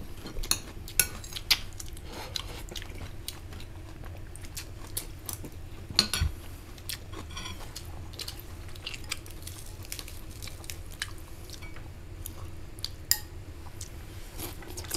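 Food being handled or chewed: irregular small clicks, taps and crunches, with a sharper click about six seconds in and another near thirteen seconds, over a faint steady hum.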